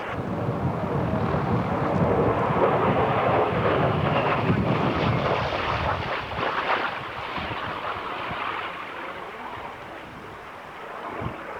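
Aircraft flying past, loudest in the first half and fading away after about six seconds, with wind buffeting the microphone.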